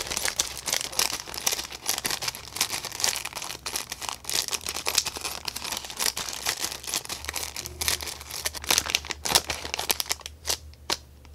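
Clear plastic wrapping around model-kit sprues crinkling and rustling as it is handled and cut open with scissors, a dense run of irregular crackles and clicks.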